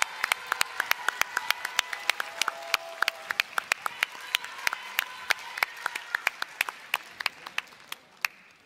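Audience applauding, with individual hand claps standing out, fading away near the end.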